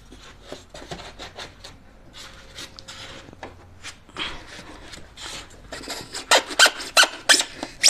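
Moulded foam packing rubbing and squeaking in short scrapes as dinnerware pieces are worked out of their slots in the tray. The scrapes come thicker and louder towards the end.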